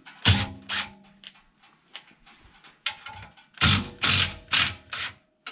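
Yellow DeWalt cordless driver spinning out the 8 mm factory bolts of a Honda Pioneer 700's exhaust tip in short bursts: two brief runs in the first second, then about four more closely spaced runs near the end.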